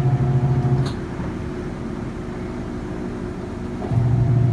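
Avanti STW20D2P portable washing machine in its spin cycle: a steady motor hum that drops away about a second in, leaving a quieter rumble, then kicks back in near the end.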